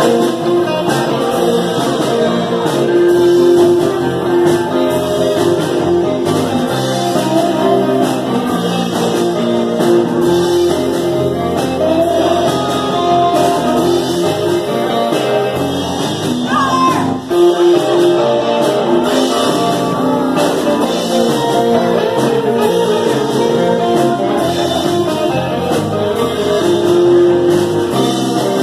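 Live band playing amplified music on electric guitars and drums, with singing.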